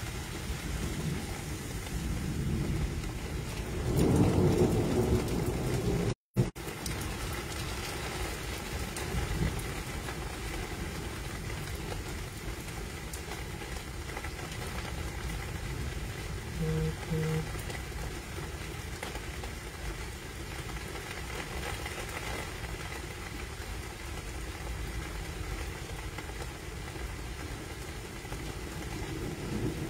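Steady rain in a thunderstorm, with a low rumble of thunder about four seconds in.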